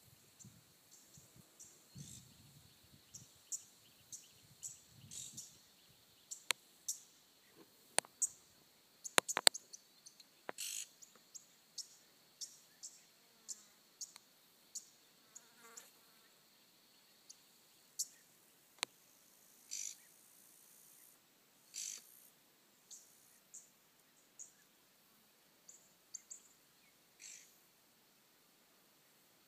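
Outdoor bush ambience: scattered short, high bird chirps over a faint steady insect buzz. A few sharp clicks cut in, the loudest a quick cluster about nine seconds in.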